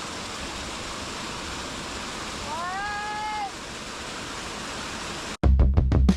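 Steady rush of a waterfall, with one short high call that rises and then holds, about halfway through. Drum-led music cuts in suddenly near the end.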